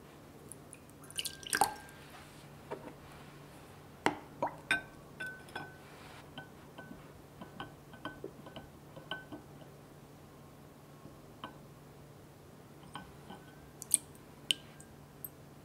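Silicone spatula stirring and tapping in a small glass ramekin of melting gelatin set in a ceramic bowl of water. The glass gives light clinks that ring briefly, with the loudest clinks about a second and a half in and near the end.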